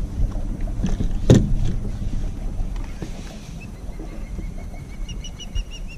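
Low steady rumble of wind and water around a kayak, broken by a few sharp knocks, the loudest about a second in. A faint, rapid, high-pitched chirping starts near the end.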